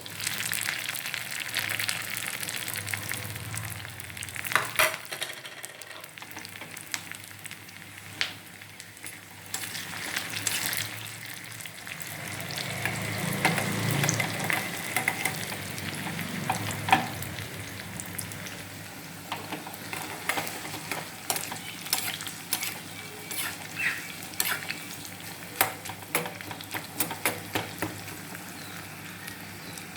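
Onion and curry leaves sizzling in hot coconut oil for a tempering, stirred in the pan, with many short sharp clicks through the steady sizzle. The sizzle grows louder for a few seconds around the middle.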